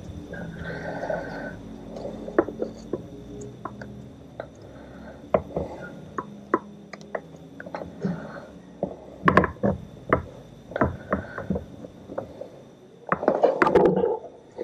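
Scattered small clicks and light knocks of metal parts being handled as a timing belt is worked onto an outboard powerhead's toothed flywheel pulley, with a louder patch of handling noise near the end.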